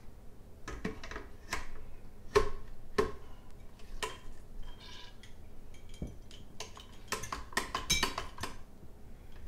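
Light knocks and clinks of a racking cane and clear vinyl tubing being handled against a plastic bottling bucket and glass wine bottles while a siphon is set up for racking. A dozen or so scattered knocks, then a quick run of clatter about seven to eight seconds in.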